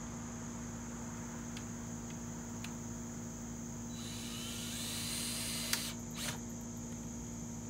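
Steady high chirring of insects. About four seconds in, a brief rising hiss of under two seconds ends in a sharp click, and a second click follows about half a second later.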